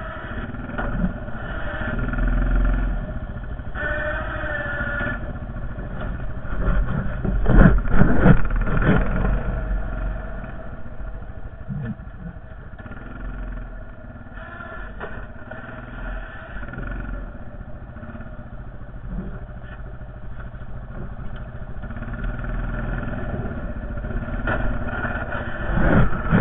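Honda Foreman 450 ATV's single-cylinder engine running, its level rising and falling with the throttle, with a burst of loud clattering and knocking about eight seconds in and again near the end.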